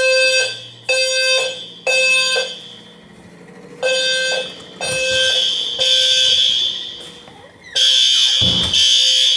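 Hotel fire alarm horns sounding a harsh, loud tone: three short pulses about a second apart, a pause, then longer blasts that run together, in the temporal-three evacuation pattern. A brief sound sliding down in pitch cuts in about eight seconds in.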